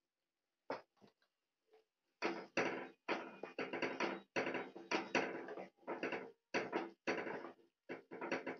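Plastic spatula stirring a thick curry in a metal kadai, a few light taps about a second in, then repeated scraping strokes against the pan about twice a second.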